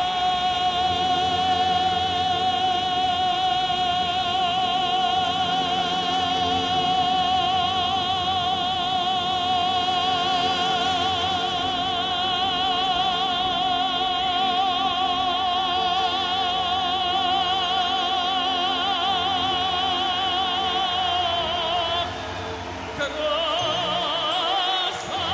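Background music in an operatic style: a singer holds one long note with a wide vibrato over steady accompaniment, then moves on to new notes near the end.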